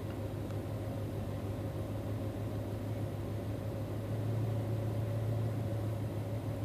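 Truck engine idling steadily, heard from inside the cab as an even low hum.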